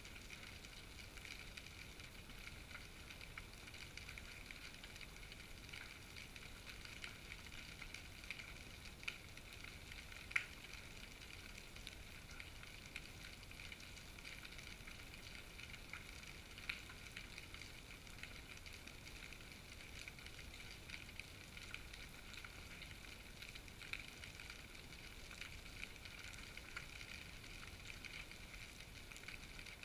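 Faint underwater crackle picked up by a GoPro in its waterproof housing hanging below a fishing float: a steady fizzing hiss with scattered sharper clicks, the loudest about ten seconds in.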